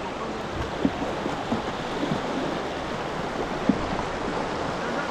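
Shallow river riffle rushing steadily over rocks, with a couple of short knocks, one about a second in and one near four seconds.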